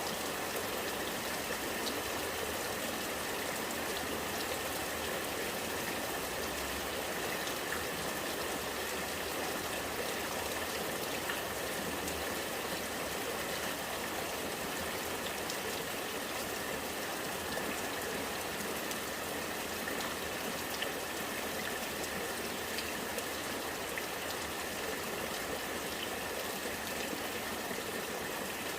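Rainwater running and gurgling while rain falls, a steady watery rush with scattered faint drips.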